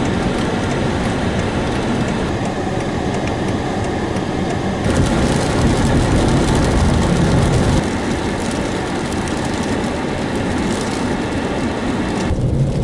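Steady road noise of a car driving on a snowy road: engine, tyres and wind together. The noise changes abruptly about five seconds in and again near the end.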